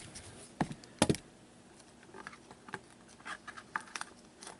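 Scattered light clicks and taps, with two sharper knocks about a second in.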